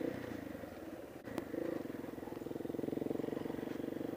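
Motorcycle engine running at a steady pace with a fast, even firing pulse; it grows stronger about a second and a half in.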